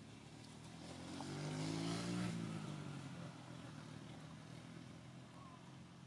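A motor vehicle engine passing by: a low engine hum that grows louder, peaks about two seconds in, then fades away.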